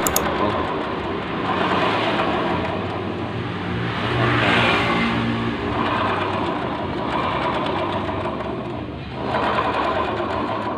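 Honda Vario 125 scooter's single-cylinder engine running with the rear wheel spinning, its CVT transmission giving a very rough, noisy sound that swells and eases a few times. The mechanic puts the roughness down to a worn pulley bearing in the CVT.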